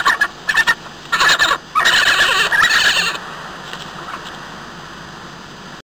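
Badger calls: a series of short, high pitched calls, the last and longest lasting about a second and a half and stopping about three seconds in. Faint hiss follows, and the sound cuts off abruptly just before the end.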